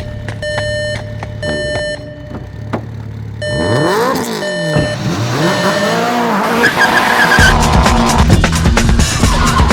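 Car-chase sound effects: a repeated electronic beep for the first few seconds, then car tyres squealing in rising and falling glides. Near the end the mix grows louder and denser, with a heavy low rhythm under the vehicle sounds.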